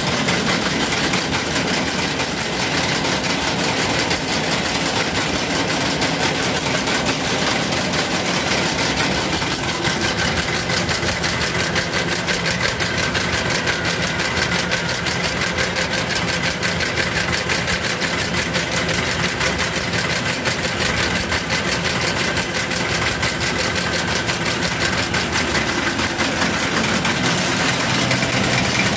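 Automatic wire-coiling ring machine running steadily, coiling and cutting steel wire into 10 mm chainmail rings with a fast, even mechanical clatter.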